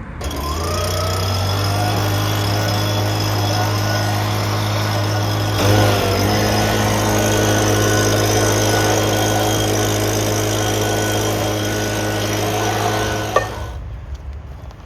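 A small electric motor spins up, runs steadily for about thirteen seconds and briefly drops in pitch under load about six seconds in. It is then switched off with a click and winds down.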